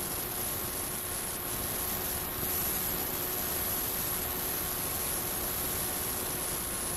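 Steady, even hiss with a thin high whine running through it, holding a constant level.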